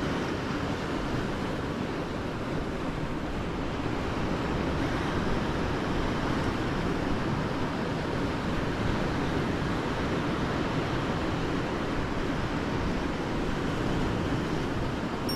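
Steady rush of wind on the microphone mixed with lake waves washing against breakwall rocks, even and mostly low in pitch, with no separate knocks or clicks.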